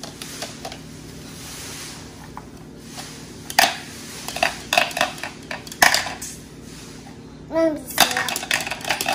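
Plastic toy spoon clicking and knocking in a small plastic toy pot and against toy kitchen pieces: a scatter of light, irregular clicks, a few sharper ones in the second half.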